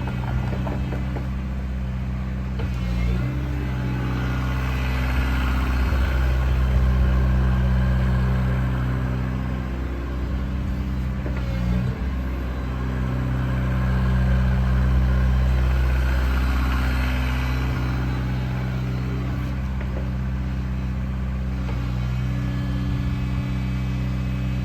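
Diesel engine of a JCB 55Z-1 midi excavator running steadily, its note swelling and easing twice as the machine is worked.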